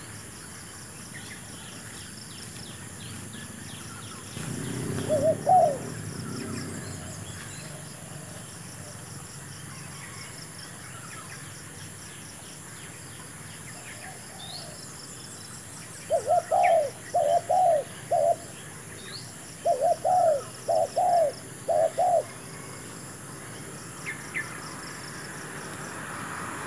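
Spotted dove cooing: a single coo about five seconds in, then two runs of four short coo notes, one starting about sixteen seconds in and one about twenty seconds in. A brief rustle comes with the first coo.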